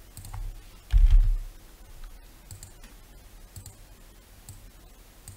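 Scattered clicks of a computer mouse and keyboard, with a low thump about a second in.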